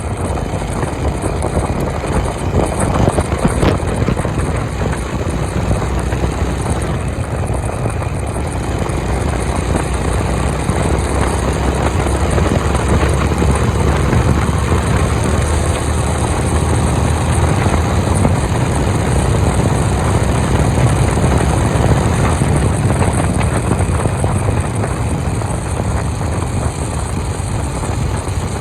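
Honda CB350 motorcycle engine running steadily at highway cruising speed, a continuous low engine note under rushing road and air noise.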